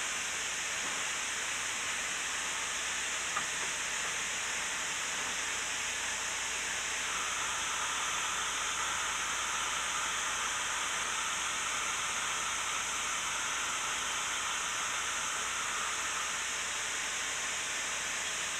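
Steady hiss of steam in the cab of a K-36 narrow-gauge steam locomotive, with no exhaust beat. A faint steady tone joins in about seven seconds in and fades out near the end, and there is a single small click about three seconds in.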